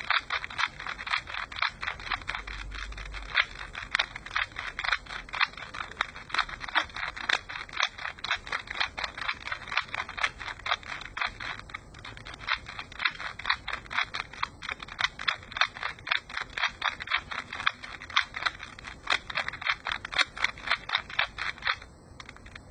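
Plastic Rubik's Cube layers clicking as they are turned over and over in a quick, even rhythm, about three clicks a second; the clicking stops near the end.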